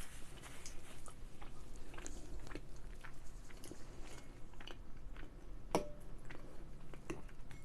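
Close-up chewing of soft, saucy cheese-filled ravioli, with small wet mouth clicks scattered throughout and one sharper click about six seconds in.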